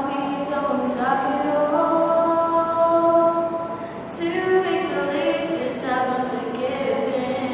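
Unaccompanied female singing, a cappella, with long held notes.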